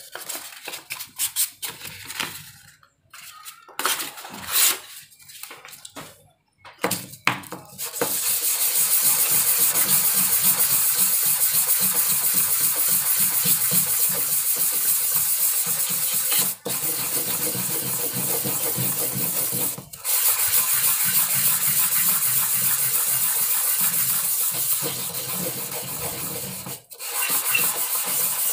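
Hand-sanding angsana (sono kembang) wood on 800-grit silicon carbide sandpaper, the finest, final smoothing grit. The paper crackles as it is handled for the first several seconds. Then comes a steady scratchy rasp of continuous back-and-forth rubbing, with three brief pauses.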